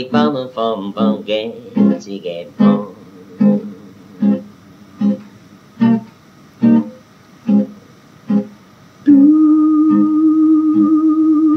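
Home-recorded music: a man singing to acoustic guitar, with a run of quick sung notes at the start. Then only an even beat about every 0.8 seconds carries on, until a long held vocal note comes in about nine seconds in.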